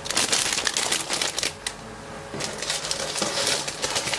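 Plastic model-kit parts in their plastic bags being handled, with crinkling and light clicking of the plastic runners and a short lull about two seconds in.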